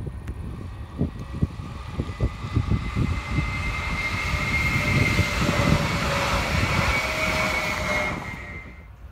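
TPF Stadler FLIRT electric multiple unit passing close at speed: the rush of wheels on rail and air grows louder, with a steady high whine above it. The sound then falls away quickly near the end as the train goes by.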